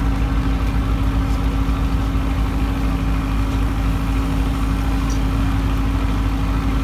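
An engine idling steadily, a constant low hum that does not change.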